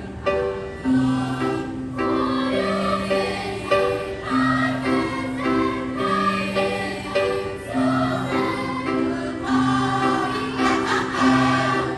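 Choir singing a song in harmony, with long held notes that change every second or so.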